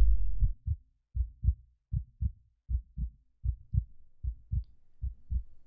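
Heartbeat sound effect: paired low thumps (lub-dub), steady at about eighty beats a minute. A low rumbling drone ends sharply about half a second in.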